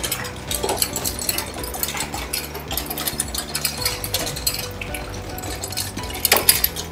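Pull-along wagon rolling over cobblestones, its wheels and frame rattling and clattering without pause, loudest near the end.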